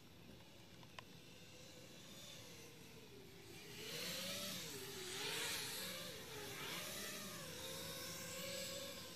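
FPV quadcopter's 2205 brushless motors and propellers whining, the pitch dipping and rising several times with throttle and growing louder about four seconds in, with a rushing hiss over it.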